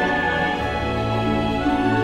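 Background music: slow, held instrumental chords, with the bass moving to a new note about half a second in.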